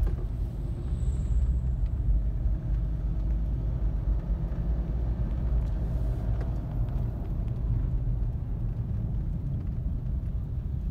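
Steady low rumble of engine and tyre noise inside a moving car's cabin.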